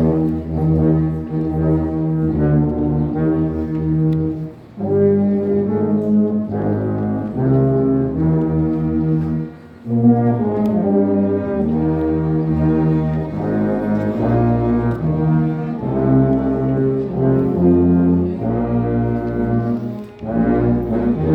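Tuba playing a slow hymn melody in long, held low notes, the phrases broken by short gaps about 5, 10 and 20 seconds in.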